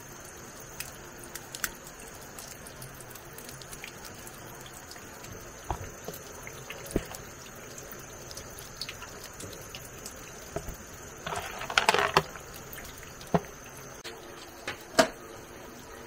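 Water dripping and trickling, with scattered light clicks and taps. About twelve seconds in there is a brief clatter of rattling and splashing, the loudest sound, and one more sharp tap near the end.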